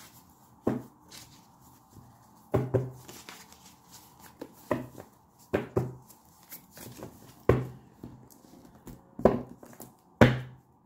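A deck of tarot cards being shuffled by hand, giving irregular soft slaps and thumps about once a second.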